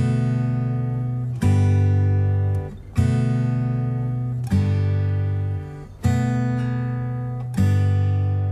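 Background music: an acoustic guitar strumming slow, ringing chords, a new strum about every second and a half.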